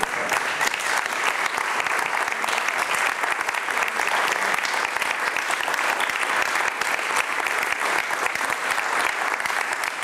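Audience applauding: steady, dense clapping of many hands.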